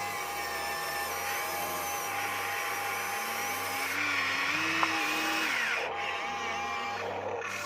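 Small electric motors of radio-controlled toy construction machines whining steadily, their pitch sliding up and down as they work under changing load, with one sharp click about five seconds in.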